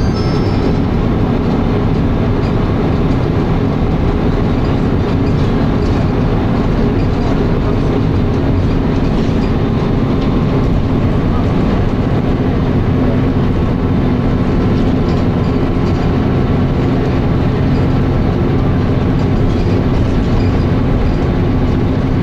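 Dennis Arrow bus engine running steadily at high revs under load, held in a low gear because the slipping ZF automatic gearbox has not yet changed up into third.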